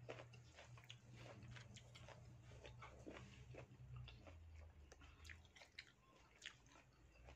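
Faint chewing of a mango slice: soft, irregular wet mouth clicks over a steady low hum.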